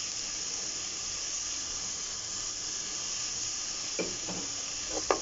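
Sliced onion and diced tomatillos frying in oil in a pot, a steady sizzle, with a couple of light taps near the end.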